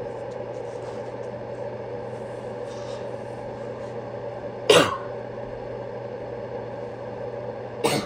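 A person coughs twice in short sharp bursts, a little over halfway through and again near the end, over a steady low hum.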